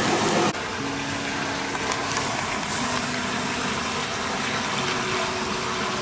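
Stream water gushing steadily out of an underground collector pipe into open water.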